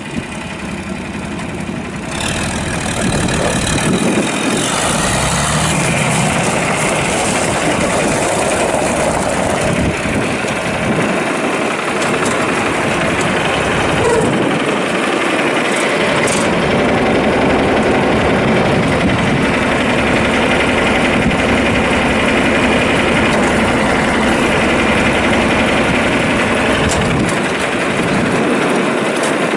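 John Deere 4020's six-cylinder diesel engine running, getting louder about two seconds in and then holding steady.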